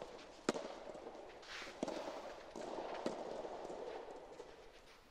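Soft tennis rally: a soft rubber ball struck by rackets three times, sharp hits about 1.3 seconds apart, over steady background noise.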